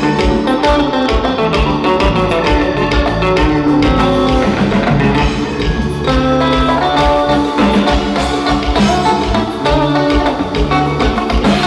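Live band playing an instrumental passage on electric guitar, keyboard, bass and drum kit, with a steady beat.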